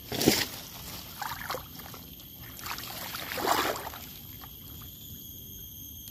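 Lake water sloshing and swishing as a person wades chest-deep and pushes through floating water hyacinth, in a few separate swishes, the loudest about a third of a second in and another around three and a half seconds.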